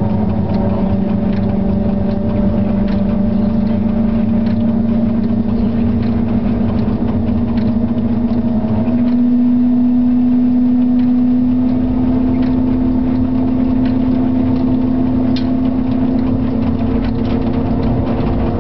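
Inside the driving cab of an SNCF CC 6500-class electric locomotive under way: a loud, steady hum over a low rumble, its pitch stepping up slightly about nine seconds in, with faint scattered clicks.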